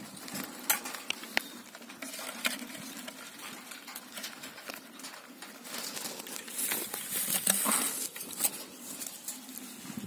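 Wire-mesh bird trap being handled: scattered light clicks, rattles and knocks of the wire with rustling, and a louder hissing rustle about seven to eight seconds in.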